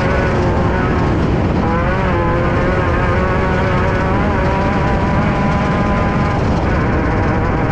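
The air-cooled 1600 cc Volkswagen flat-four of a Class 5/1600 race car running hard under load, heard from inside the car over a heavy low rumble. The engine pitch dips briefly about two seconds in, then holds steady, and the engine note weakens near the end.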